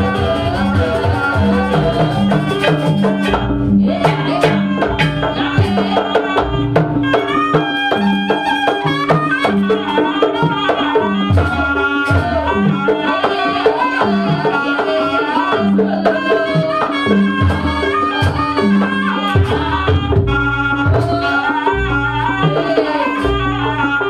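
Traditional Jaranan dance music: drums beating a driving, repeating pattern under a bending melody, with a steady held tone running beneath.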